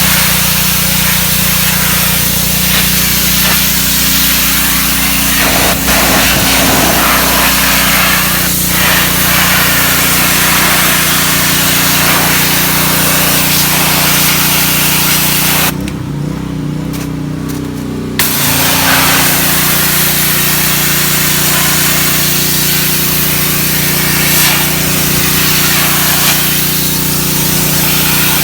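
Ryobi pressure washer's single-cylinder Honda GCV160 engine running steadily under a loud, hissing high-pressure water spray stripping paint. About 16 seconds in, the spray stops for about two seconds and the engine note wavers before the spray resumes.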